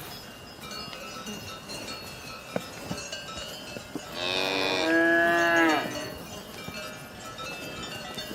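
A cow mooing once, one long call about four seconds in, over faint high tinkling tones and a few small clicks.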